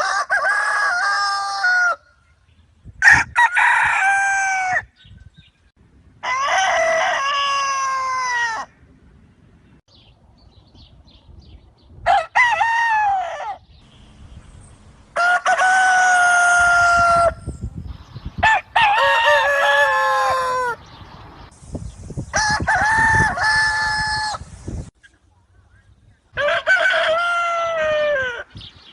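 Free-range country rooster crowing, eight long crows a few seconds apart, several falling in pitch at the end.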